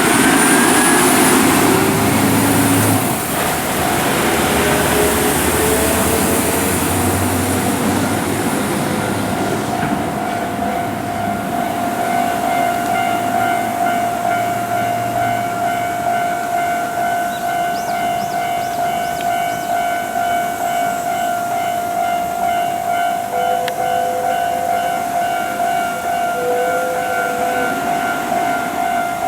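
Heavy diesel truck engines pulling through, their pitch rising, then about nine seconds in a level-crossing warning alarm starts sounding a steady, pulsing tone that keeps going.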